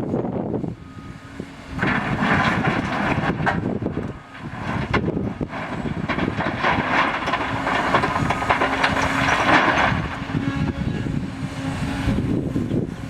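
Hydraulic excavator working: the machine runs with a steady hum underneath, and a louder, rougher noise from about two seconds in to about ten seconds in.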